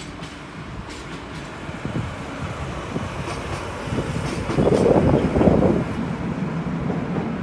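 KE65 diesel locomotive running light along the track and moving away, its engine and wheel noise steady, with a louder noisy surge from about four and a half to six seconds in.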